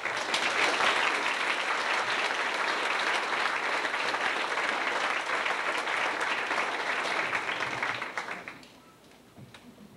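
Audience applauding, a dense patter of many hands clapping that dies away about eight and a half seconds in, leaving a few last scattered claps.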